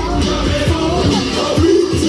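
Upbeat dance music with a steady beat and a melody line, played loud for a group dance.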